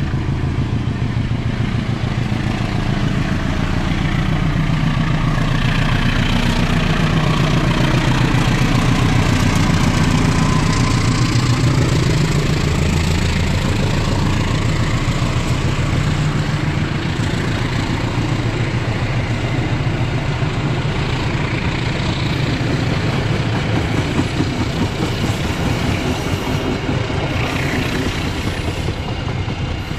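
Diesel-hauled KAI passenger train passing close by: a loud low engine drone and the rumble of the coaches' wheels on the rails, loudest about a third of the way in and easing slightly as the train moves off.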